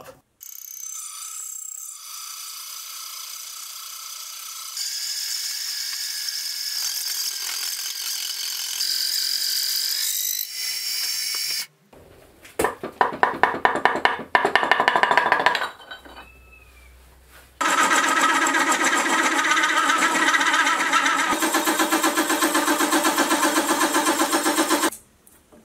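Slitting saw on a milling machine cutting through aluminium plate: a steady, high-pitched whine. Partway through, it breaks off for a few seconds of rapid clattering knocks, then the saw runs through the metal again.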